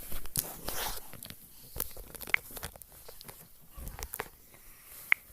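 Light scattered taps and clicks of a smartphone being handled and its screen tapped, with two short high blips, one about two seconds in and a louder one near the end.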